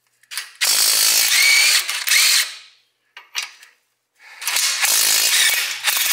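DeWalt DCF911 20V cordless impact wrench run twice with no load, about two seconds each time, its pitch wavering as the trigger is worked. Short clicks come before each run.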